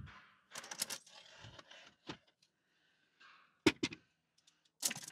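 Aluminium pole stands and a hinged plywood trap-door lid being handled: a handful of sharp knocks and clicks with light scraping between, two knocks close together past the middle.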